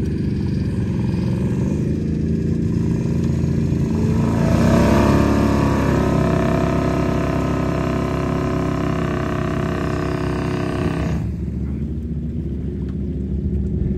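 Side-by-side UTV engine running under load during a cable winch recovery from deep water. About four seconds in it revs up and runs louder and brighter for about seven seconds, then drops back to a lower steady rumble.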